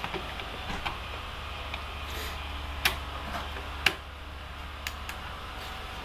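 A handful of sharp plastic clicks and knocks as a refrigerator's mains plug is pushed into a power strip and the supply switched on, the two loudest about 3 and 4 seconds in, over a steady low hum.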